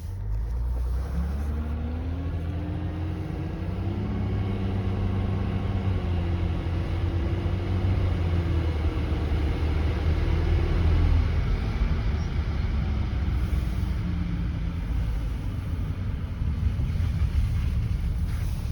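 Mercedes-Benz W211 E320 CDI driving, a howling whine over the low drone of engine and road. The whine rises in pitch over the first few seconds, holds, then falls away about eleven seconds in. It is the unexplained noise the owner is chasing, and he has ruled out the air conditioning as its cause.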